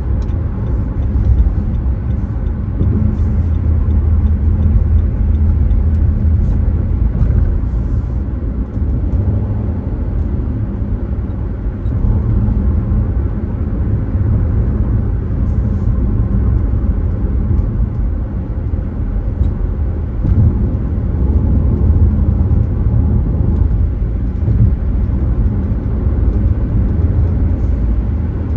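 Car driving along the road: a steady low rumble of tyre and road noise with the engine underneath.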